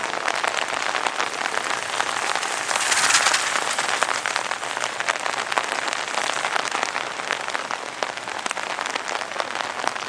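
Steady rain pattering in many small drops, with a stronger swell of hiss about three seconds in.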